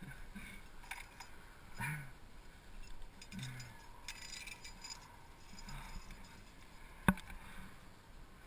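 Climbing gear being handled: a nylon sling and aluminium carabiners clinking faintly as a runner is taken out, with one sharp metallic click about seven seconds in.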